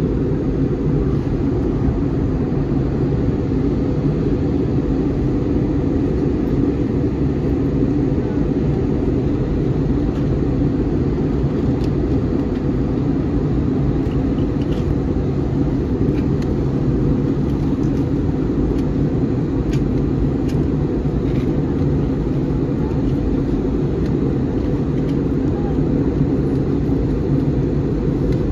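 Steady low rumble of an Airbus A321 cabin in descent, the even mix of airflow and engine noise heard from inside an airliner.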